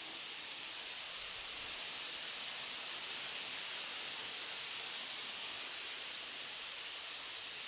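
Steady, even hiss with no bird calls.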